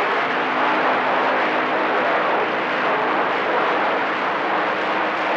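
CB radio receiver static: a steady hiss and rush from the speaker while tuned to channel 28 with no one transmitting clearly, and faint steady low tones under the noise.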